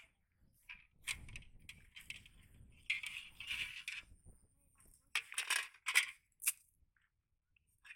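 A cast net's lead sinkers clinking and rattling against a metal basin as the net is handled and pulled out of it. The sound comes in several short bursts.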